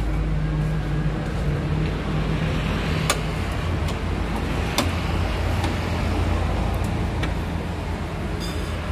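Steady low engine hum with two sharp metallic clicks, about three and five seconds in, as a screwdriver works a screw on the car door's metal frame.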